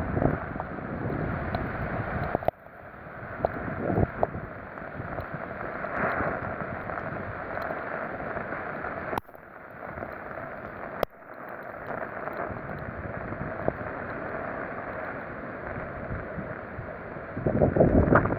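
Typhoon storm wind blowing hard in gusts, buffeting the microphone, with a strong gust near the end. The sound breaks off abruptly a few times.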